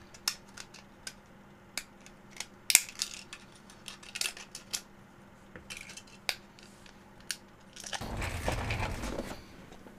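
Printed plastic tree supports being snapped and pulled off a 3D-printed mouse shell by hand: a string of small irregular snaps and clicks, the sharpest about three seconds in. About eight seconds in comes a longer rustling handling noise lasting about a second.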